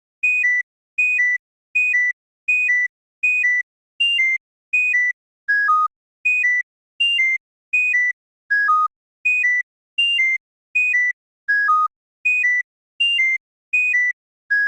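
Twitter notification chirp as a melody: a quick two-note high electronic blip, the first note higher than the second, repeated about every three-quarters of a second some twenty times. Every few repeats the pair shifts higher or dips lower.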